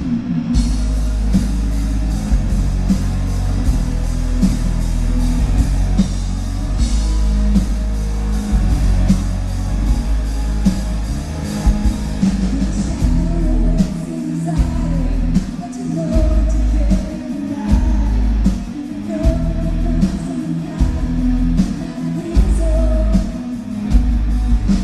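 Symphonic metal band playing live: drums, bass and guitars, with a woman's lead vocal coming in about halfway through. Heard from the audience, with a heavy, boomy low end.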